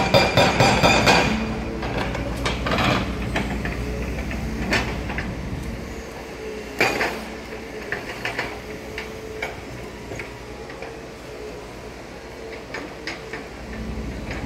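Excavator-mounted hydraulic breaker hammering rapidly into the ground, stopping about a second in. Then scattered metallic clanks and knocks of construction work over a steady low hum.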